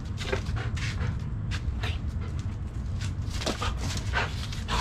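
Belgian Malinois panting hard in short, irregular breaths, about two to three a second, over a steady low rumble.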